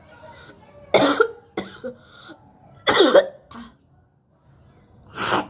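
A woman coughing and hawking up phlegm from a heavy cold, in three harsh bursts about two seconds apart, with smaller hacks after the first two.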